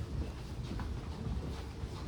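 Low steady rumble of a vehicle in motion, with faint irregular clicks and rattles.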